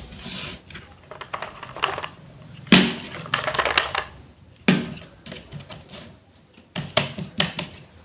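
Small wooden toy food pieces clacking and knocking together, in a few quick clusters of sharp clicks with light scraping between them.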